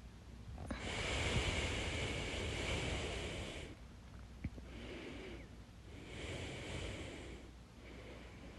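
A person with hiccups breathing in long, noisy breaths, with a single short, sharp hiccup about four and a half seconds in.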